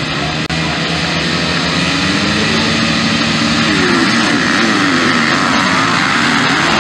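A pack of MX1 motocross bikes revving loudly together at the starting gate, then accelerating hard off the line about halfway through, their engine pitches shifting as they launch.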